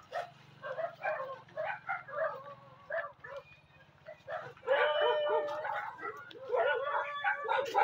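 An animal's short, high-pitched calls, repeated several times a second. A longer drawn-out call comes about five seconds in, then a quick run of rising-and-falling calls near the end.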